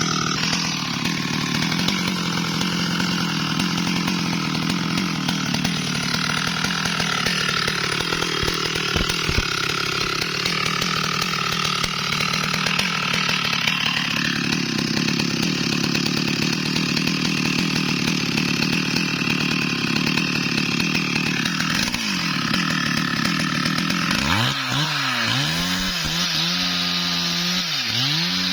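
Stihl MS382 two-stroke chainsaw running at high revs while cutting into wood. Its pitch sags under load for a few seconds partway through and then recovers. Near the end the engine speed swings up and down again and again.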